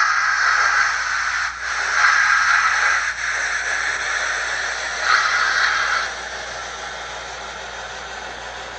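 Simulated steam hiss from a QSI Titan-U DCC sound decoder, played through the small speakers of a brass model C53 steam locomotive as it moves slowly along the track. The hiss comes in long swells about a second each, near the start, about two seconds in and about five seconds in, then settles to a quieter steady hiss.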